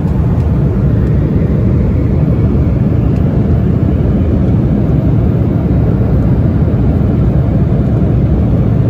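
Steady cabin noise of an Embraer 175 regional jet in flight: engine and airflow noise heard from inside the cabin, a loud, deep, even rush that does not change.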